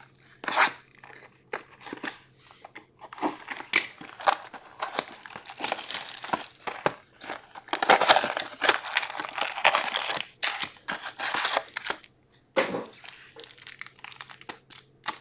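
Plastic shrink wrap crinkling and tearing as it is stripped off a hockey card box, followed by the cardboard box being opened and foil card packs rustling as they are lifted out. A dense run of irregular crackles, thickest in the middle, stops briefly near the end.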